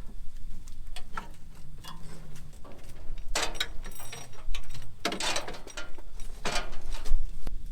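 Hand work on a combine's feeder house after its chain came off: scattered sharp metallic clicks and ticks, with three short rasping scrapes in the middle and second half.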